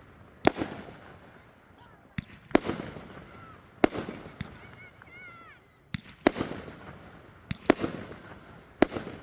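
Fireworks exploding: about a dozen sharp bangs every second or two, several in quick pairs, each followed by a rolling, echoing rumble.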